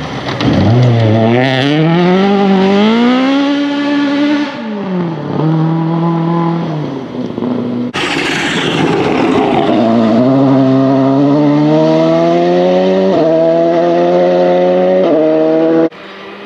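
Ford Escort Mk2 rally car's engine revving hard as it accelerates out of a bend, then easing off. After a sudden cut, another rally car's engine climbs up through the gears, rising in steps. Near the end the sound cuts to a quieter, more distant engine.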